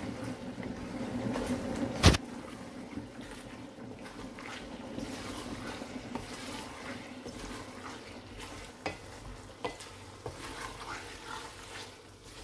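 Wooden spatula stirring minced meat and bitter gourds in an aluminium pan, scraping and shuffling over a light frying sizzle. One sharp knock about two seconds in, with a few lighter taps later on.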